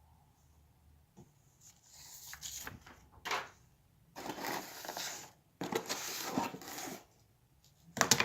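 Packaging rustling and scraping in several bursts as a loaf of bread is pulled out of it, with a sharp click about three seconds in and a few clicks near the end.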